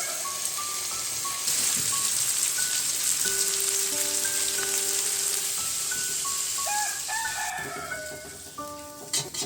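Food frying in a pan: a steady sizzling hiss that starts about a second and a half in and cuts off abruptly near the end, under background music. A few sharp clicks come right at the end.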